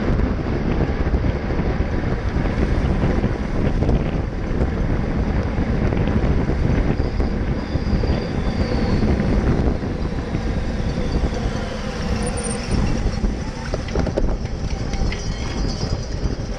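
Wind rushing over a bicycle-mounted action camera's microphone, with tyre and road rumble, as a road bike rides fast in a racing pack at about 35 mph. It is a little quieter in the second half as the bike slows.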